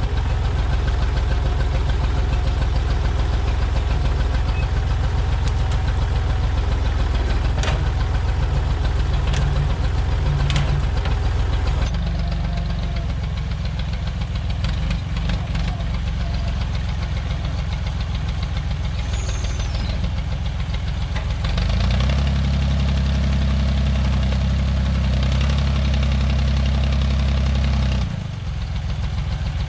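Massey Ferguson backhoe tractor's engine running under work, its note shifting about halfway and rising to a higher, stronger pitch for several seconds near the end before dropping back. A few sharp cracks sound in the first half.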